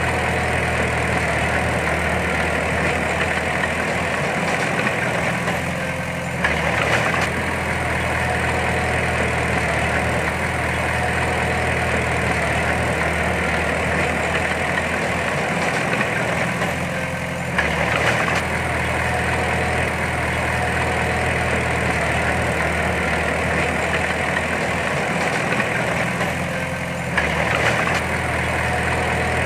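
Heavy earthmoving machine's diesel engine running steadily, with a brief change in pitch and a louder moment about every ten seconds, three times in all.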